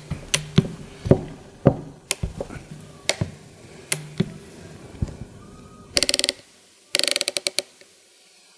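Ericsson T2600 hand crimping tool being worked, its lever mechanism clicking about every half second as the lever is pumped to close the dies on a copper splice clamp. Near the end come two short, fast rattles of clicks.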